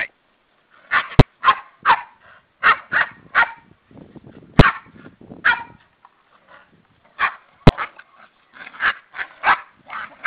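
Two German shepherd puppies scuffling and giving a run of short, sharp barks and yips in quick succession, with three sharp knocks among them.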